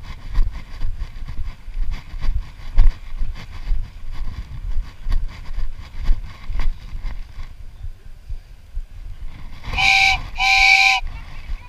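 Two short horn blasts, each about a second long, near the end. Before them there is a low rumble with scattered knocks.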